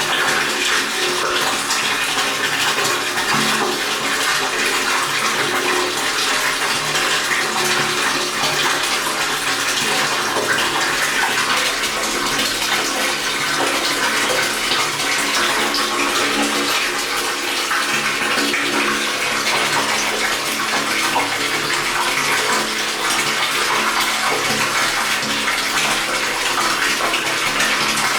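Water pouring into a water tank as it fills: a steady, unbroken rush of falling, splashing water.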